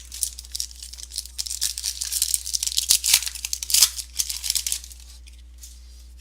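A trading-card pack wrapper being torn open and crinkled, a dense crackle of tearing and rustling lasting about four and a half seconds before it stops.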